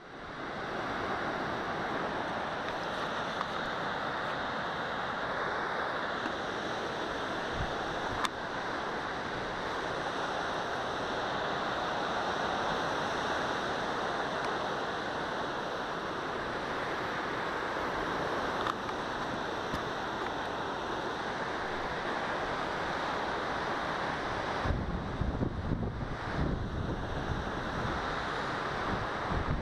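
Steady rush of wind and waves breaking on the shore. About 25 seconds in, a gusty low rumble of wind buffeting the helmet-mounted camera's microphone joins it as the bike gets moving.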